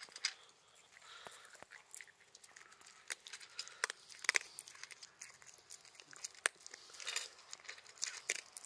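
Shiba Inu chewing a mouthful of dry kibble: irregular sharp crunches, one after another.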